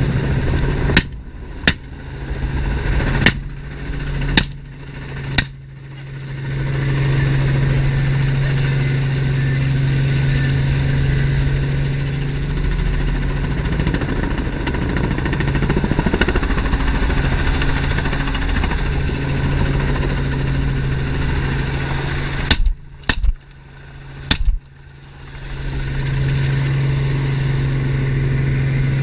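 Helicopter engine and rotor drone heard inside the cabin, a steady low hum, broken by rifle shots: about five sharp shots over the first six seconds, then a second quick volley of about four shots around 23 seconds in.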